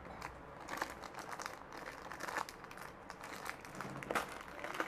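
Packaging being handled and crinkling, with irregular short rustles and small clicks, as jewellery is unpacked.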